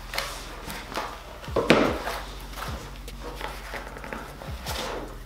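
Handling noise from unpacking a massage gun's foam-lined carrying case: light clicks, knocks and rustles as parts are lifted out, with one louder rustle a little under two seconds in, over a faint steady low hum.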